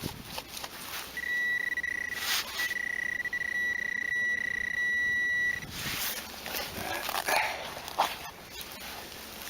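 Metal detector sounding a steady high-pitched tone over a buried metal target, broken by a few short gaps, for about four seconds. After it stops come irregular rustling and scuffing sounds.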